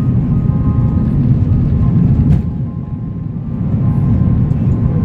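Cabin noise on board an Airbus A330-300 on approach: a steady low rumble of airflow and the Rolls-Royce Trent 772B engines, with faint steady whine tones above it. A brief click comes a little past two seconds in, and the rumble eases for about a second after it.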